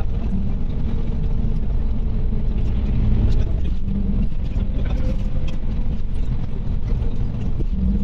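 Iveco Crossway LE city bus driving, heard from inside at the front: a steady engine and road drone with faint clicks and rattles from the bus's fittings.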